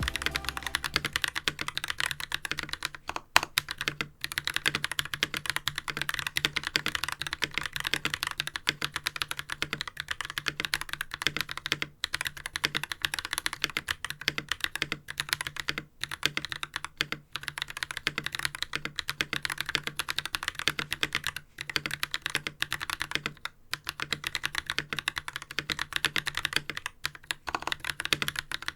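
Fast, continuous typing on a mechanical keyboard with Holy Panda tactile switches lubed with Krytox 205g0 and GMK Oblivion ABS keycaps. It is a dense stream of key clacks with a few short pauses.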